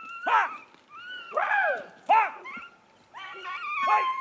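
Beagles baying as they chase a rabbit: a run of rising-and-falling howling calls, one held longer near the end.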